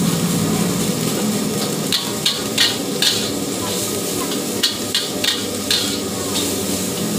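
Long-handled metal spatula scraping and clanking against a steel wok as rice is stir-fried, in irregular runs of sharp strokes. Under the strokes the rice sizzles steadily in the hot oil.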